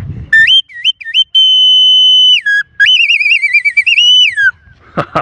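Mexican animal-effigy whistle played to imitate a little bird's song: a few quick rising chirps, a long steady high note, then a fast warbling trill that ends in a falling glide.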